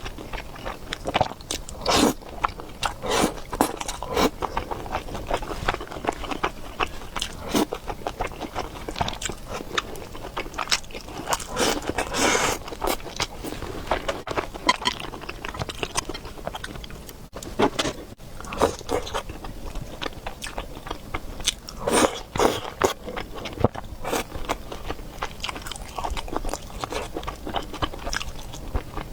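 Close-miked eating: a person chewing and biting into noodles and meatballs, with irregular small crunches and mouth clicks.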